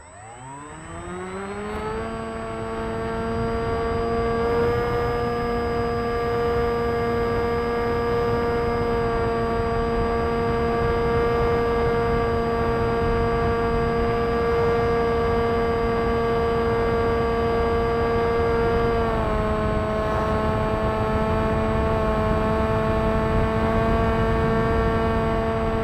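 FT Explorer RC foam plane's electric motor and propeller, heard from the camera on board, spinning up with a rising whine over the first two seconds and then running at a steady high whine. The pitch dips slightly about 19 seconds in as the throttle eases, with a low rumble of wind across the microphone underneath.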